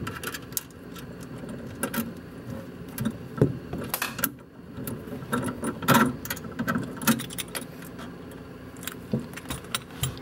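Irregular metallic clinks and knocks as a power cowl vent actuator and its metal mounting bracket are handled and pulled down from under a dashboard, with the sharpest knocks about three and a half and six seconds in.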